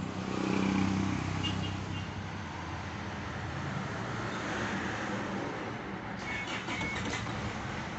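Isuzu 4JH1-TC four-cylinder turbo-diesel idling, heard from inside the cab, in an engine that stalls at idle. It swells briefly about half a second to a second in, then settles to a steady idle, with a few short high chirps and clicks near the end.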